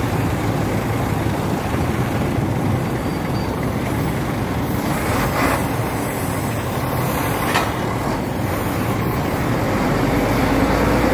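Road traffic on a busy street: cars, vans and motorcycles running past in a steady noise, with two brief sharper sounds about five and seven and a half seconds in.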